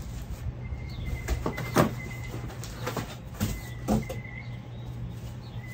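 Packing being handled in a cardboard box: a plastic bag crinkles and cardboard scrapes and knocks as a piece is pulled out, with several sharp knocks, the loudest about two seconds in and another near four seconds. A low steady hum runs underneath.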